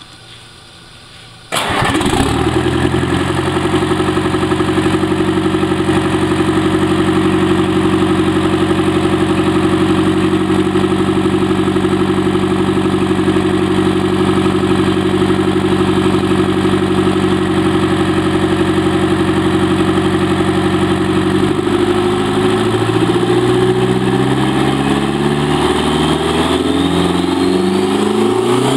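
Detroit Diesel 4-53T two-stroke turbocharged four-cylinder diesel firing up suddenly about a second and a half in and settling into a steady idle. In the last several seconds it is revved up and down, its pitch rising and falling.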